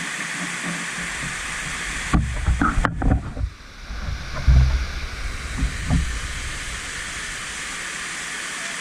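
Waterfall's steady rush of falling water. From about two seconds in, for about four seconds, irregular loud low buffeting on the microphone breaks in over it.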